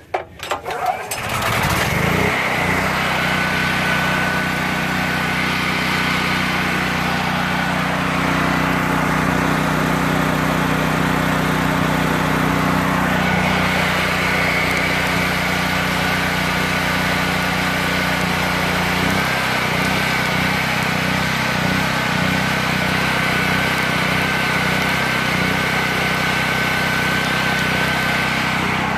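Chicago Electric portable generator's gasoline engine, choked, pulled over with the recoil starter and catching about a second in after four years of sitting, then running steadily. Its tone shifts about two-thirds of the way through.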